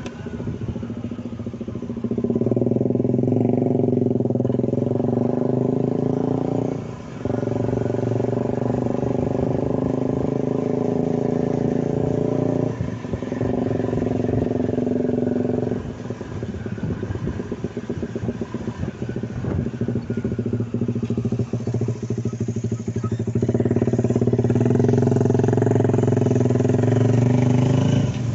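Scooter engine running steadily while the scooter is ridden, with two brief dips about a quarter and about halfway in, then a rougher, lower stretch before it steadies again near the end.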